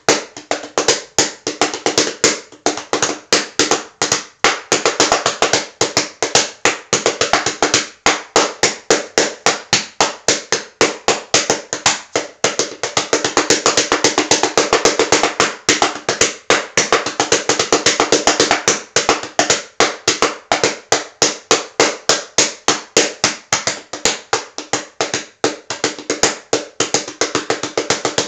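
Child-size toy bongo drums struck by hand in a fast, continuous run of beats, about five or six strikes a second.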